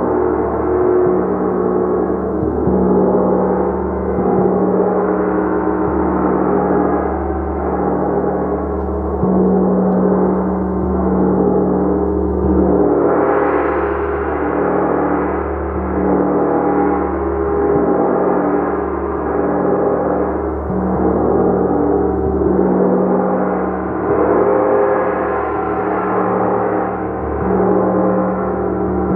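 Gong played continuously, a dense sustained wash of many overlapping tones that swells and ebbs gently, growing brighter about thirteen seconds in.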